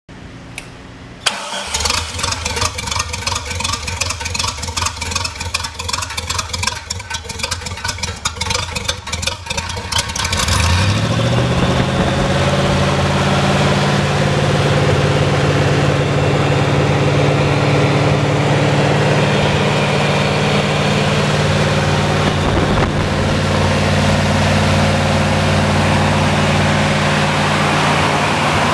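A Chevrolet 350 small-block V8 irrigation engine running on propane is cranked over by its starter for several seconds with a pulsing rhythm. About ten seconds in it catches, revs up and settles into a steady run.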